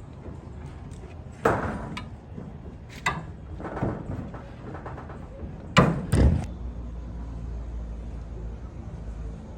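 A few separate knocks and thuds, the loudest two close together about six seconds in, followed by a steady low rumble.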